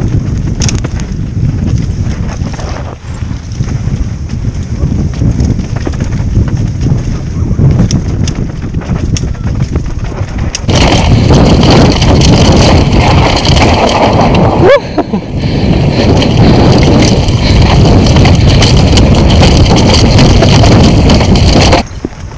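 Wind buffeting a helmet-mounted camera's microphone while a downhill mountain bike rides a rough dirt trail at speed, mixed with the rumble and rattle of tyres and bike over the ground. The noise gets louder and brighter about ten seconds in, and a brief rising squeal comes through a few seconds later.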